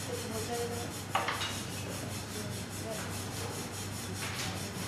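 Electric potter's wheel running with a steady motor hum while wet clay rubs under the hands on the spinning pot, giving a fast, regular swishing. A short tap comes about a second in.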